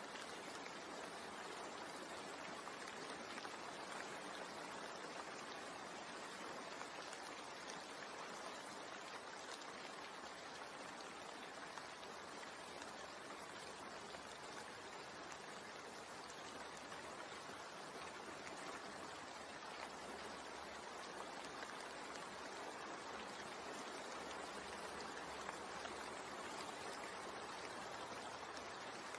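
Steady rain, an even, unbroken hiss of falling water with no distinct drops standing out.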